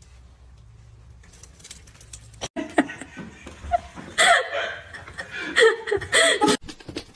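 A faint low rumble, then a person laughing hard for about four seconds, starting about two and a half seconds in.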